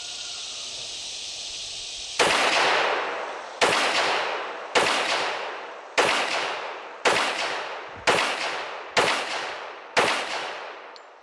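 A .45 ACP 1911 pistol firing Sig Sauer Elite Performance hollow-point ammunition: eight shots at about one a second, starting about two seconds in, each ringing out in a long echo.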